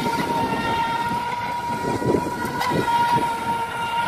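FT011 RC speedboat's brushless electric motor whining at one steady high pitch while the boat runs flat out on the water.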